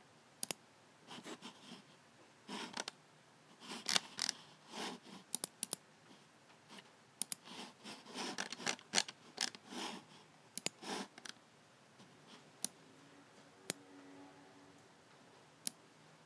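Logicool G7 computer mouse: its buttons clicking, mixed with short scratchy rustles. The sounds come in busy clusters through the first ten seconds, then as a few isolated sharp clicks.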